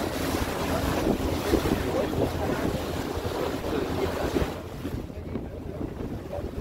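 Wind buffeting the microphone on a moving passenger ferry, over the steady low drone of its engine and water rushing past the hull. The wind eases about four and a half seconds in.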